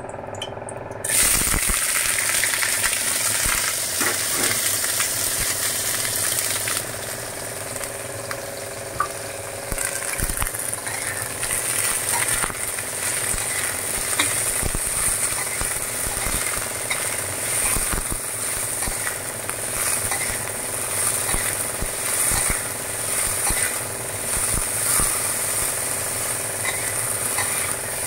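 Julienned green peppers dropped into hot oil in a wok about a second in, setting off a loud sizzle that eases after about six seconds; the peppers keep sizzling as they are stir-fried, with a metal spatula scraping and clicking against the wok.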